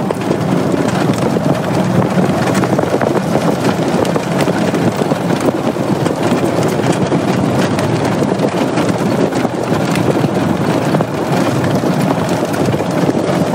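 Steady drone of a vehicle driving along a gravel lane: engine and tyre noise mixed with wind buffeting the microphone.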